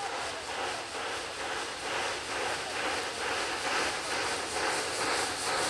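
Steam locomotive Ol12-7 coming closer under steam, its exhaust beating in a steady rhythm of chuffs, about two a second, slowly growing louder.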